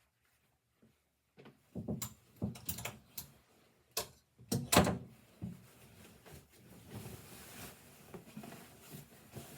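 A run of sharp knocks and clunks in quick succession, the loudest nearly five seconds in, then quieter handling noise.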